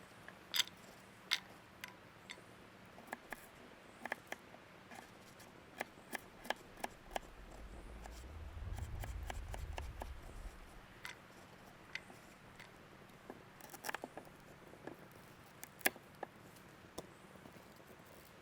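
Dry sticks and kindling crackling and snapping in irregular sharp clicks. Near the middle, a dull low rumble swells up and fades away.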